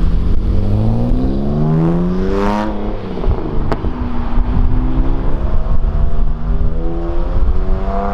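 BMW 3 Series sedan accelerating hard away: engine pitch climbs through a gear and falls at an upshift about three seconds in, with one sharp pop just after. A car engine then climbs in pitch again toward the end.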